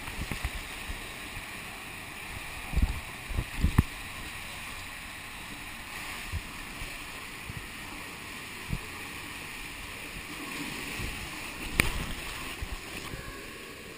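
Water rushing steadily through an enclosed waterslide tube, with low thumps as the rider bumps along the slide; the loudest thumps come a few seconds in and again near the end.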